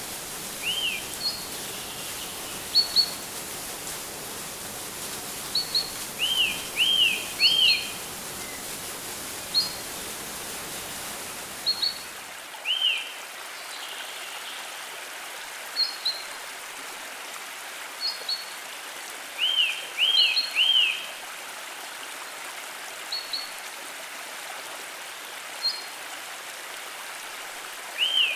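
Birds chirping in short repeated calls, some high quick chirps and some arched, upswung notes in quick groups of two or three, over a steady rush of running water. The deeper part of the water noise drops away about twelve seconds in.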